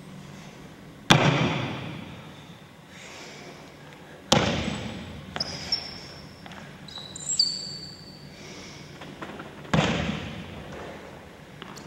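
Three sharp thumps from a martial artist performing a kung fu form, each echoing in a large room, with a few short high squeaks in between.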